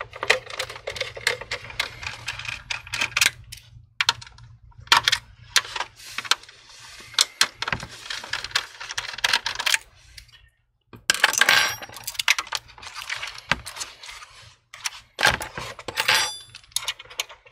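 Irregular clicks, taps and scrapes of a screwdriver working the screws of an all-in-one computer's metal hard drive cage, with small metal clinks and plastic rattles from the parts being handled. There are a couple of brief pauses.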